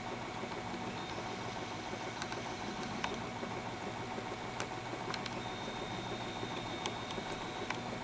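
Old Style waterfall motion sign running, its small drive motor and mechanism giving a steady hum with a few faint ticks scattered through.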